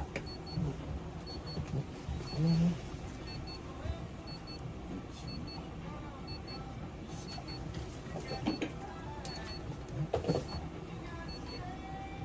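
Electronic device beeping: short high double beeps repeating about once a second.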